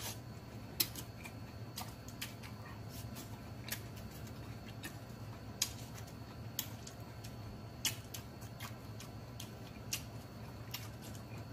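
Close-miked chewing of a mouthful of sausage, cucumber, red onion and rice: sharp wet mouth clicks and crunches at irregular intervals over a low steady hum.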